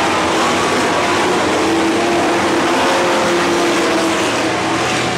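A pack of dirt-track stock cars racing at speed: many engines running hard together, a loud steady din with engine notes drifting up and down in pitch as cars pass.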